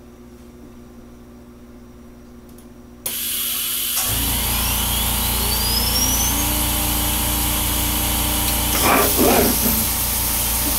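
Low steady hum, then about three seconds in a loud hiss starts abruptly and the CNC router's VFD-driven spindle spins up, its whine rising steadily over about four seconds on its set acceleration ramp before holding at speed, with a low rumble joining underneath. Near the end come a couple of short louder bursts.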